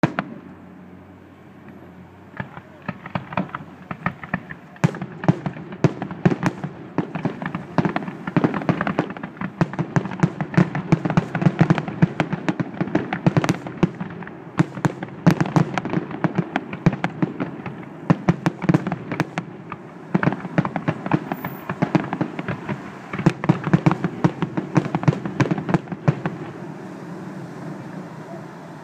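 Aerial fireworks display: a rapid, dense series of shell bursts, several bangs a second, starting about two seconds in and stopping a few seconds before the end.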